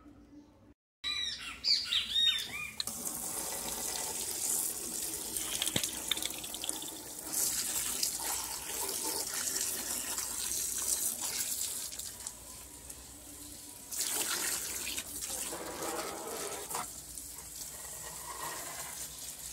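Water from a garden hose spraying and splashing into an air conditioner's base pan and across its finned coil, a steady rushing hiss that swells and eases as the jet moves.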